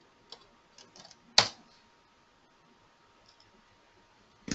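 Keystrokes on a computer keyboard: a few light key clicks, then one much louder, sharper key strike about one and a half seconds in, and another sharp click near the end.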